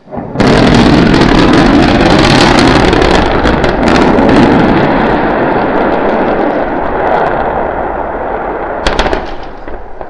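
Starship SN9 crashing on its landing pad and exploding: a sudden, very loud blast that rolls on as a heavy rumble with crackling for about eight seconds, with a short burst of sharp cracks near the end before it fades.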